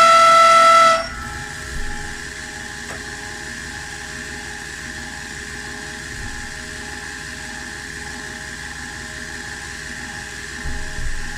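CNC milling machine running with a loud, steady high-pitched whine made of several tones. About a second in it drops abruptly to a quieter steady whine.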